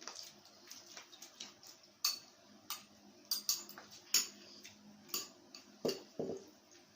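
Cutlery and dishes clinking during a meal: a scatter of sharp, irregular clicks and taps, about eight clear ones.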